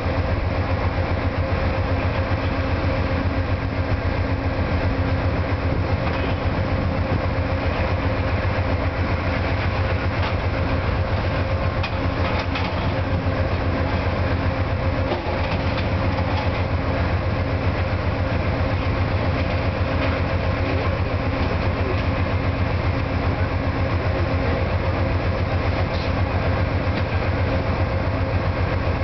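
Two Amtrak GE P42 diesel locomotives standing at a station with their engines running, a loud, steady, unchanging diesel drone with a deep hum.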